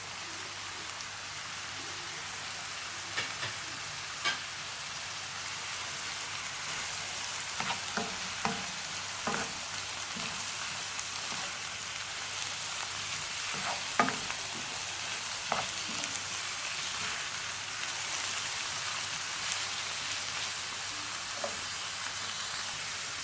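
Carrots, spring onion and sweet corn frying in coconut oil: a steady sizzle, with scattered knocks and scrapes of a spoon stirring the pan.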